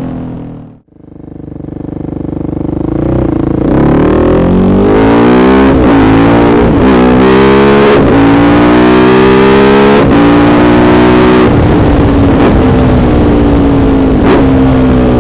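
KTM 690 SMC-R single-cylinder engine through a Dominator aftermarket exhaust, revving hard under acceleration. Its pitch climbs, then drops back and climbs again several times, as at gear changes. The sound fades almost out about a second in before swelling back up.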